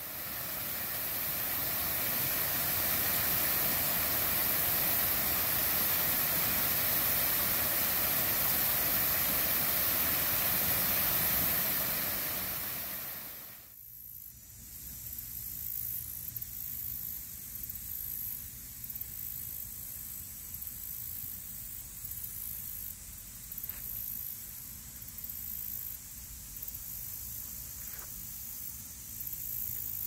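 Waterfall pouring over an old concrete dam wall: a steady rush of falling water. It cuts off abruptly about halfway through, leaving a much quieter, uneven background hiss.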